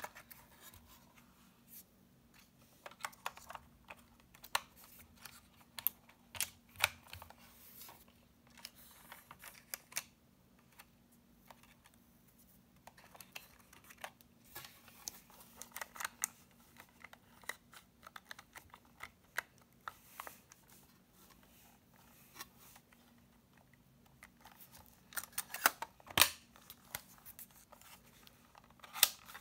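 Scattered clicks, taps and light scrapes of fingers handling the plastic body of a Premier PC-664 compact 35mm film camera, with its back door opened and shut, over a faint steady hum.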